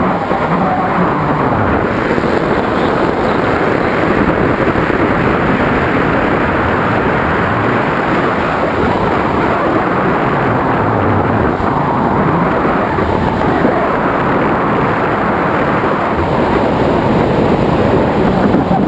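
Loud, steady rush of airflow buffeting the microphone of a camera mounted on a tandem hang glider in flight.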